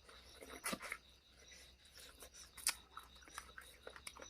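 Close-up eating sounds: soft, irregular clicks and crackles of chewing food, with a sharper click a little after halfway.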